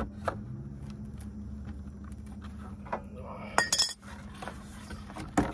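Light metallic clinks and knocks from a new aluminium condenser being handled out of its cardboard box, with a brief ringing rattle about three and a half seconds in and a sharper knock near the end.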